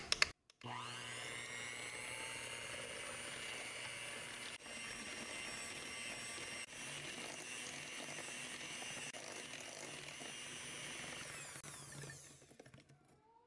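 Electric hand mixer beating eggs and sugar in a glass bowl. The motor spins up about half a second in, runs steadily, then winds down and stops shortly before the end.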